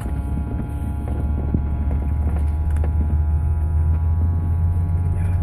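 Coach bus engine and road noise heard from inside the cabin while driving: a steady low drone with a faint steady whine over it and a few light rattles.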